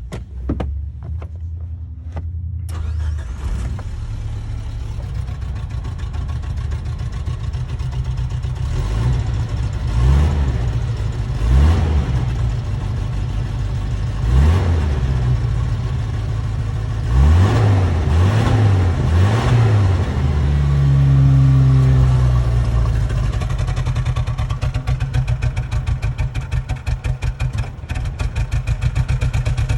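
A 1990 Suzuki Sidekick/Geo Tracker's four-cylinder engine catches about three seconds in after a few clicks, then idles and is revved several times: three quick blips past the middle, then a longer rev. Toward the end it settles into an uneven, pulsing idle, running rough with a misfire and close to stalling after the revs.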